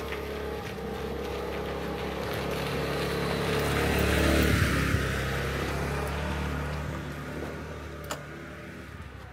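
A motor vehicle's engine passing close by, growing louder to its loudest about four to five seconds in and then fading away. A short knock sounds near the end.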